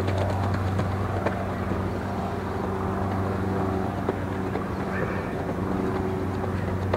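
A steady low hum under outdoor background noise, with a few faint clicks.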